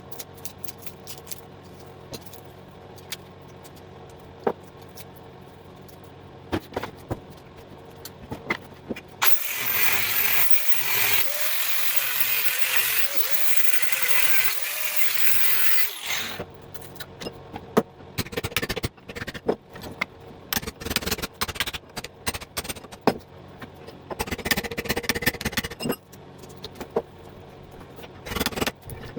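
Sped-up time-lapse sound of transformers being broken down. In the middle an angle grinder's cutoff wheel cuts through the casing for several seconds, with a wavering whine. Before and after it come rapid hammer-and-punch taps and metal clatter as the copper windings are knocked out.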